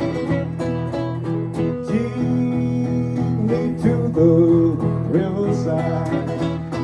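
Acoustic blues guitar playing an instrumental passage: a steady picked rhythm with a bending melody line over it through the middle.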